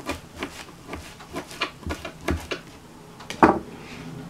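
Kitchen knife chopping rolled leaf twists on a cutting board: a run of irregular knocks, about three a second, with the loudest a little past three seconds in.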